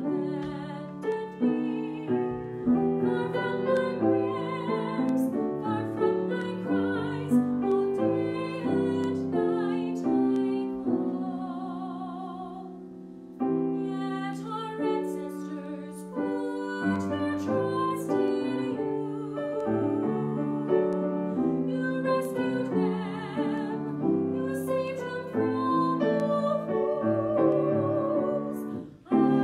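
A woman singing a psalm with vibrato, accompanied by a grand piano. About halfway through, a held note fades away before the singing and piano pick up again.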